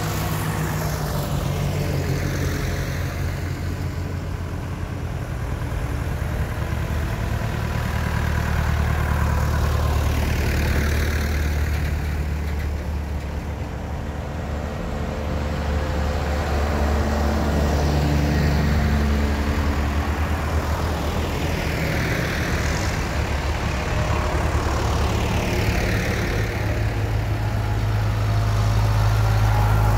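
A procession of tractors driving past one after another: a vintage grey Ferguson, a red tractor, a green John Deere and a blue New Holland. Their engines run steadily underneath, and each one grows louder and then fades as it passes.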